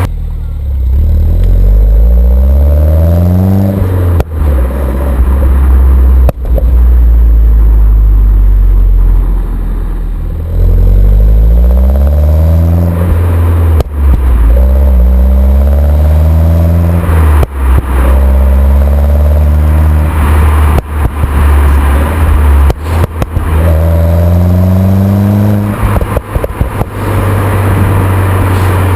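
A Mini Cooper S (R56) turbocharged four-cylinder engine with its stock exhaust accelerates hard through the gears several times, its pitch rising in each gear. Sharp exhaust pops and bangs come at the lifts and gear changes, with a quick run of crackles near the end. This is the overrun popping the car gives with its sport button engaged.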